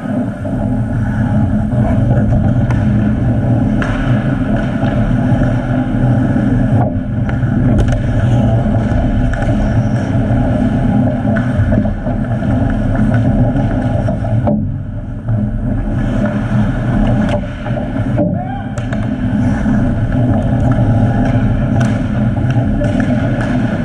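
Ice hockey play close to the net: a loud, steady low rumble with scattered sharp clicks and knocks of sticks, puck and skates on the ice.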